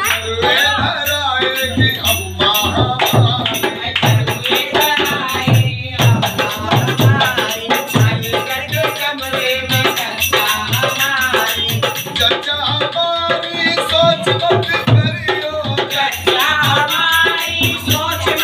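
Live Indian folk song: a solo voice singing over a dholak drum beating a steady rhythm, with a shaken rattling percussion.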